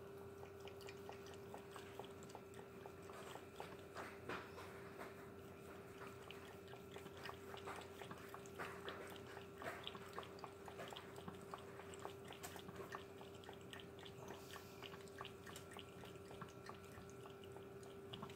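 Cat lapping water from a glass measuring cup: faint, quick, irregular wet clicks, densest in the middle and tailing off near the end.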